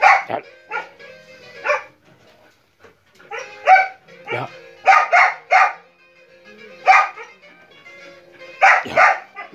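Dogs barking: about a dozen short, sharp barks in irregular runs, several in quick succession around the middle and two together near the end.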